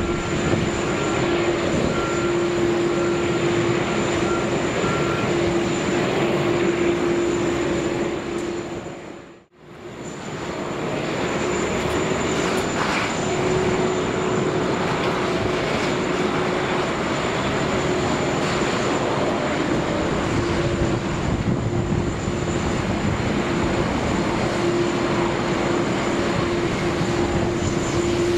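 Airbus A380's four jet engines running at taxi power: a steady rush with a low hum and a thin high whine. The sound fades out to silence and back in about nine to ten seconds in.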